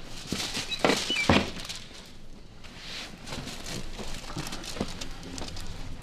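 A person rolling over on a padded treatment table: two thumps about a second in with a few short squeaks, then softer shuffling and light knocks.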